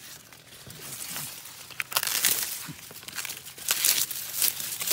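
Sugarcane leaves, dry and green, rustling and crackling as someone pushes through the cane. The irregular crackling gets busier and louder about two seconds in.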